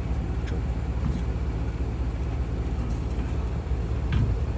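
Vehicle engine running steadily at idle, a low even rumble.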